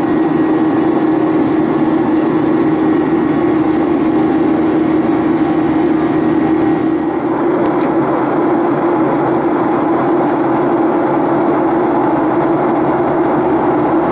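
Boeing 737-800's CFM56-7B jet engines heard inside the cabin from a window seat during the climb after takeoff: a steady, loud engine noise with a strong low hum and faint steady whining tones above it.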